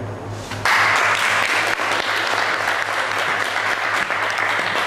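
Audience applause, many hands clapping, starting suddenly a little over half a second in and going on steadily.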